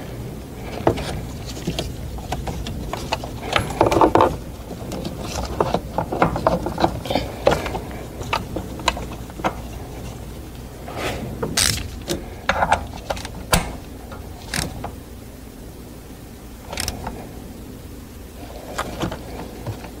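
Ratchet wrench clicking in short, irregular runs, with clinks of metal tools, as a new rocker arm oil pressure switch is tightened into the engine.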